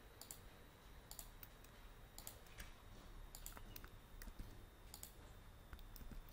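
Faint, irregular clicks of a computer keyboard and mouse, about a dozen in a few seconds, as text is selected, copied and pasted between windows.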